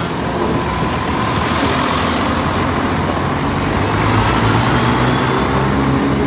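Class 170 Turbostar diesel multiple unit passing close by at low speed, its diesel engines running, getting a little louder as it comes alongside.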